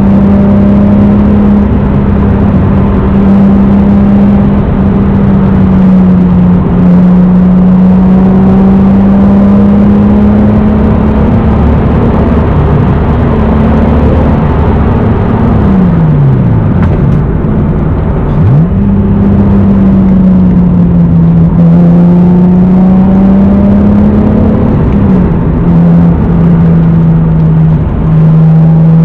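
1993 non-turbo Toyota Supra's 3.0-litre inline-six (2JZ-GE) with an aftermarket exhaust, pulling at a steady cruise under light throttle. About two thirds of the way through, the revs drop away sharply and then snap back up, as in a gear change; there are a couple of smaller dips near the end.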